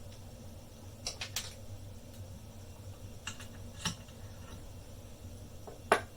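Sharp metallic clicks and taps from handling a just-picked Abus XP2 dimple lock and its picking tools, about five spread unevenly, over a steady low hum.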